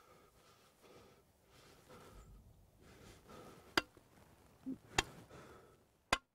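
A man sobbing softly in short, repeated breaths. Three sharp cracks come about a second apart in the second half, and the sound cuts off right after the last one.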